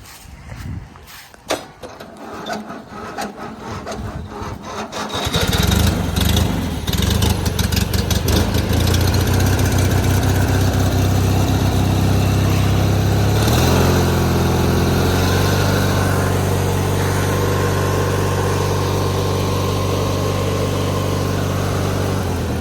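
1997 MTD Yard Machines riding lawnmower engine on a cold start: a few seconds of clicks and cranking, then it catches about five seconds in and runs steadily. About halfway through, its speed shifts down and it settles into a steady run.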